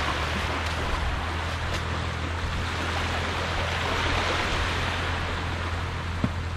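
Small waves washing onto a calm sandy beach, a steady hiss that swells about four seconds in, over a steady low rumble. A single sharp click near the end.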